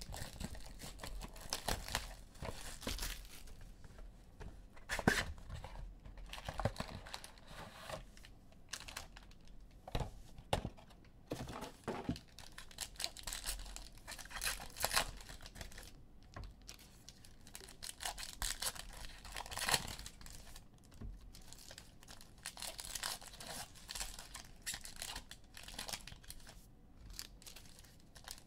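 A box of trading-card packs being torn open and its foil-wrapped packs handled: irregular tearing, rustling and crinkling of cardboard and wrappers.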